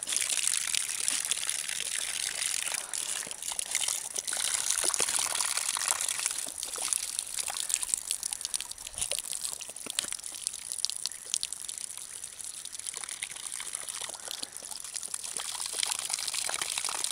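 Water pouring steadily over a small waterfall, with irregular sharp splashes through it.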